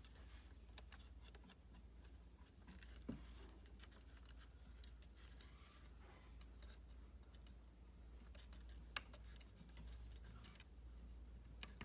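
Faint, scattered small clicks and taps of laptop parts and screws being handled during reassembly, over a low steady hum, with two sharper clicks about 3 and 9 seconds in.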